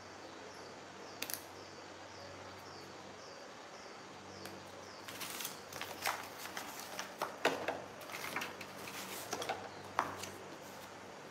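Pieces of cardboard being handled, shuffled and laid down on a floor, with light clicks and knocks from a metal square ruler and a marker pen, busiest in the second half. A faint high chirp repeats about twice a second underneath.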